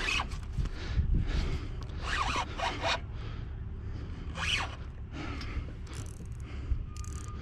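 Fishing reel and line worked against a hooked fish: short, uneven bursts of scratchy reel and drag noise every second or so. A faint steady tone comes in near the end.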